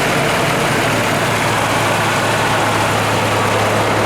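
1998 Ford Ranger's four-cylinder engine idling steadily and evenly, running smoothly now that a clogged fuel injector behind its rough idle has been replaced.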